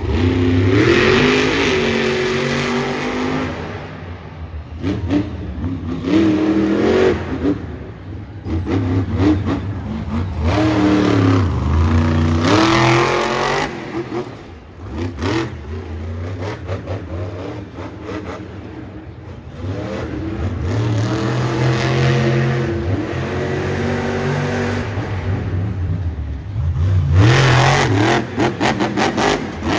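Monster truck's supercharged big-block V8 revving hard in repeated bursts, the pitch climbing and dropping with each throttle stab and easing between them, with a loud climb near the end.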